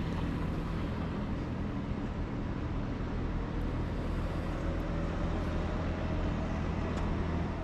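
Steady low mechanical hum, with a faint tone rising slowly in pitch through the middle.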